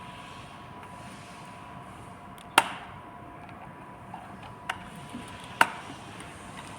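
Three sharp clicks and a few fainter ticks of wires being fitted into the terminal blocks of a strapping machine's control box, over a faint steady hum.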